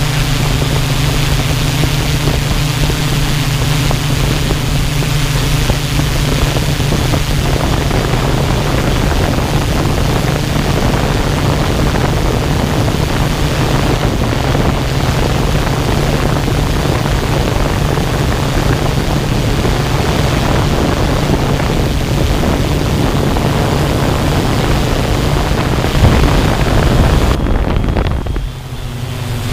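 Drone's propellers humming steadily under wind noise, the hum holding one pitch and briefly dipping in level near the end.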